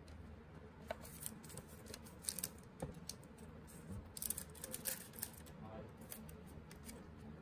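Faint, scattered clicks and light scrapes of trading cards being handled and slid one over another.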